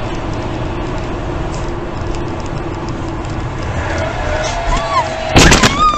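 Car cabin road noise while driving on a highway: tyres and engine with a steady hum. About five and a half seconds in, a sudden loud bang breaks in.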